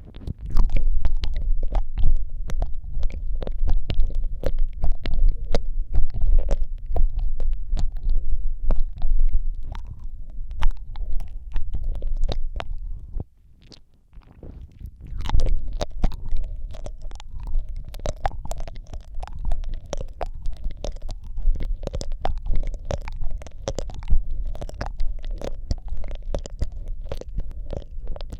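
Wet mouth sounds made right against a microphone: rapid irregular lip smacks, tongue clicks and licking, over a low rumble from breath and contact close to the mic. They pause briefly about halfway through.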